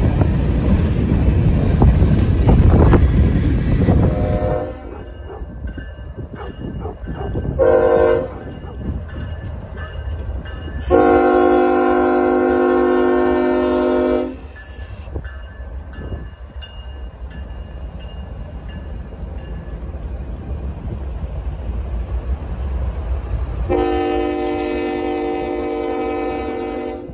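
Freight cars rumbling past with wind on the microphone, then Canadian National diesel locomotives passing with their engines running and sounding a multi-chime air horn: two short blasts, a long blast of about three seconds, and another long blast near the end.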